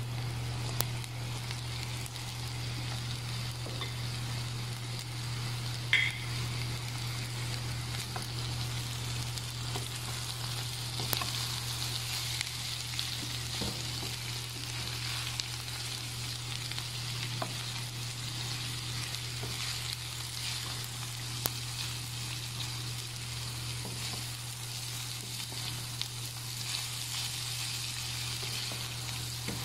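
Chopped fried chicken and onions sizzling in a hot pan as they are stirred, with scattered short clicks and scrapes against the pan, the sharpest about six seconds in. A steady low hum runs underneath.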